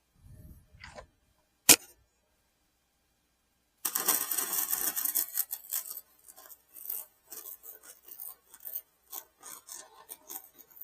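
A sharp metallic click, then a run of rough scraping strokes on metal by hand: first one long scrape, then shorter irregular strokes.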